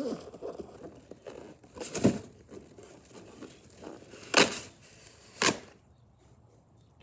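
Packaging being pulled and torn by hand: crinkling and rustling, with three louder rips about two, four and a half, and five and a half seconds in.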